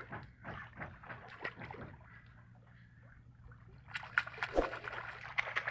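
Sea water splashing and sloshing around a swimmer's hands and arms at the surface, getting busier about four seconds in, over a low steady hum.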